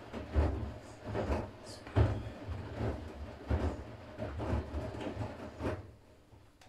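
Siemens iQ500 front-loading washing machine's drum turning during the wash, with laundry tumbling in an irregular run of thuds and swishes over a low rumble. It stops near the end as the drum pauses between turns.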